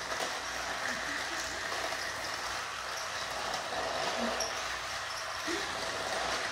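Several battery-powered toy trains running on plastic track: a steady whirring of small motors and wheels on the track.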